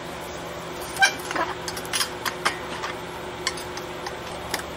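A few light metal clicks and taps from a wrench working the starter nut on a VW Beetle transaxle, spaced irregularly over a faint steady hum.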